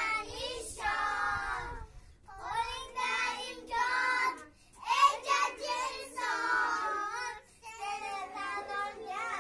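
Young children singing a song, phrase by phrase with short breaks between lines.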